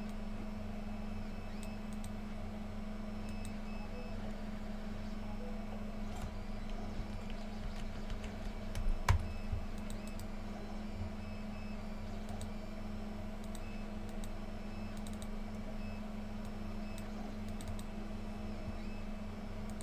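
Scattered light clicks of a computer mouse and keyboard over a steady low hum, with one louder knock about nine seconds in.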